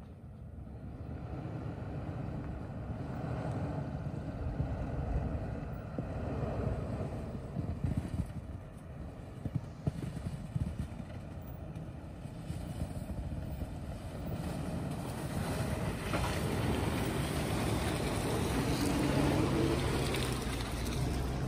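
Lexus LX470's V8 engine working at low speed as the SUV crawls over a snowdrift, growing louder as it approaches and passes close by, with a short rise in revs near the end.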